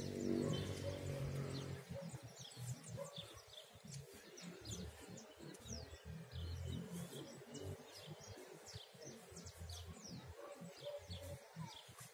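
Small birds chirping, a steady stream of short quick calls that sweep downward, over a low uneven rumble that is strongest in the first two seconds.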